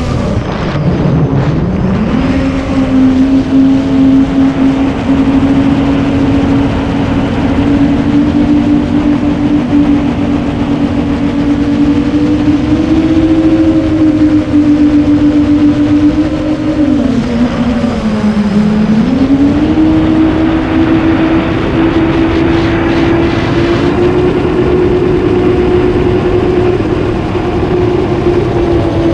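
Motors and propellers of a 9-inch FPV quadcopter droning with a steady whine. The pitch dips and climbs back about a second in and again around 18 seconds as the throttle changes, then rises gently near the end.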